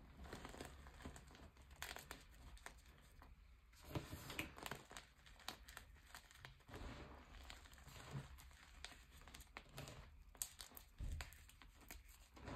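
Gym chalk chunks being squeezed and crumbled by hand in a pile of chalk powder: faint, irregular crunching and crackling, with a few sharper crunches about four seconds in and again around ten seconds in.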